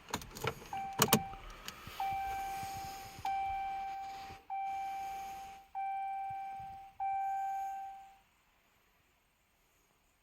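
Pickup truck cab warning chime: six evenly spaced dings about a second apart, each fading out, after a few clicks and knocks from handling in the cab.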